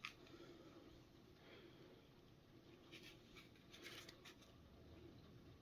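Near silence: room tone with a few faint, short clicks and rustles of handling, clustered about three to four and a half seconds in.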